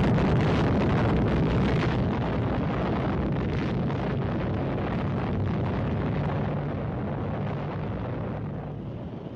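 Deep rumble of a large explosion: a dense, steady rush of noise that slowly dies away, its high hiss thinning after about two seconds.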